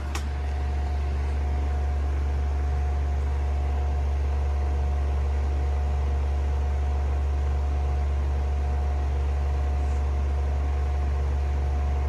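Steady low hum from an Omnicharge portable power bank's AC inverter delivering about 49 watts to a running table fan, heard close up, with a faint steady whine above it.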